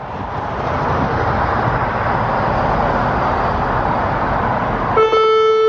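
Steady rushing outdoor background noise. About five seconds in, a Federal Signal Modulator 6048 electronic siren starts its alert chime, a steady electronic tone rich in overtones that marks the start of the monthly siren test.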